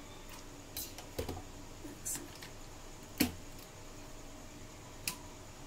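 A few scattered clicks and light knocks, about five in all, as an SMD hot-air rework station is plugged in and switched on, over a faint steady hum.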